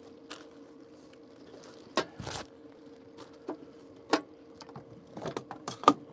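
Kitchenware being handled: a handful of sharp clicks, clinks and knocks, the loudest about two and four seconds in and a quick cluster near the end, over a steady low hum.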